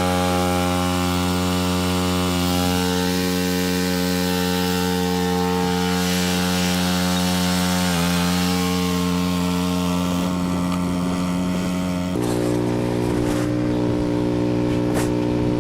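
Cub Cadet 2X 30-inch EFI snow blower's gasoline engine running steadily. About twelve seconds in, the engine note changes abruptly to a different pitch, and a few sharp clicks follow.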